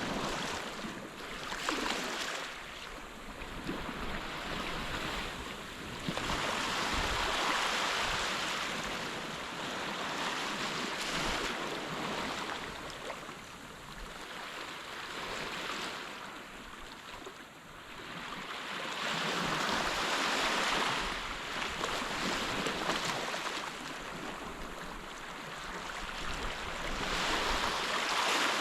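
Surf washing onto a beach: a steady hiss of breaking waves that swells and fades every several seconds.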